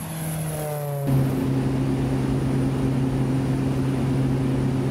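A motor vehicle's engine running, climbing in pitch, then dropping to a lower note about a second in and holding a steady hum.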